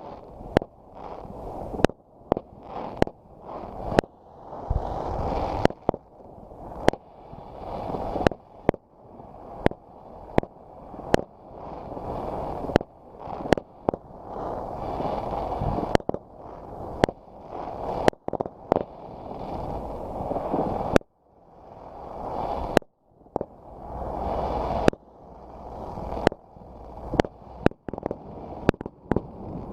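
Fireworks going off: sharp bangs about once a second, some in quick pairs, over a continuous rumble and crackle of further explosions. The overall level dips after each bang and swells back up before the next.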